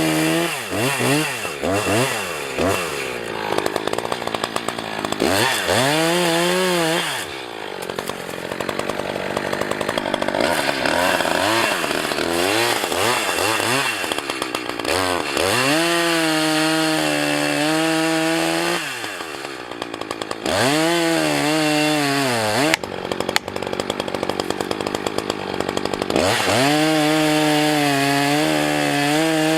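Two-stroke chainsaw revved again and again to full throttle and let back down, with a stretch of steadier, rougher running under load as it cuts into a tree.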